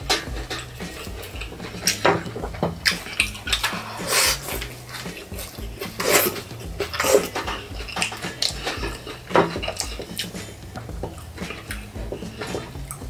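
Close-miked eating sounds: irregular crunching and chewing of fried chicken, with sharp clicks and rustles from gloved hands handling the chicken and the plate, over a faint low hum.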